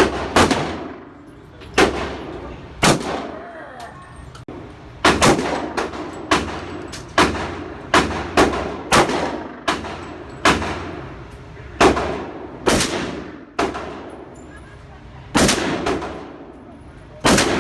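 A string of about twenty gunshots at uneven spacing, some in quick pairs and some a second or two apart. Each crack trails off in a short echo.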